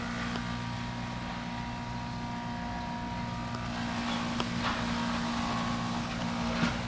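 Engine running at a steady idle with a low, even drone, with a couple of light clicks in the second half.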